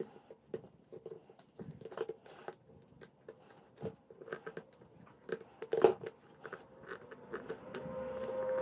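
Thin flat-tip screwdriver (a voltage-tester screwdriver) scraping and clicking against metal staples in a canvas-covered wooden stretcher bar as it levers their wire up, a scatter of small clicks and scratches. Background music fades in near the end.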